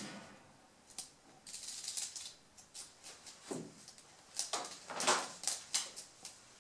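Young rabbits rustling and nibbling at a wicker hay basket: irregular light clicks and short crunchy rustles, coming in little clusters.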